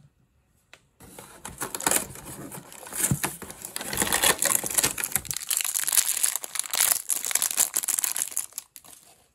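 A crinkly plastic blind bag holding a small toy figure, pulled from a cardboard calendar door and then crumpled and torn open by hand: dense, uneven crinkling and rustling that starts about a second in and dies away just before the end.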